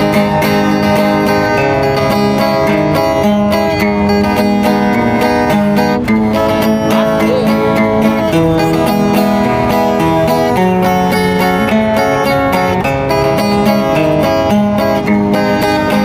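Music: an acoustic guitar strummed steadily in a song, with no singing tagged.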